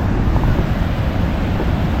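Steady rushing of a swollen, muddy river in spate after heavy rain.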